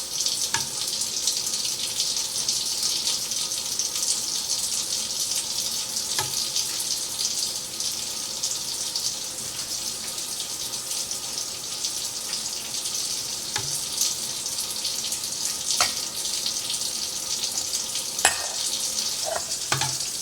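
Kitchen tap running steadily, hot water pouring over glass canning jars to warm them, with a few light clicks along the way.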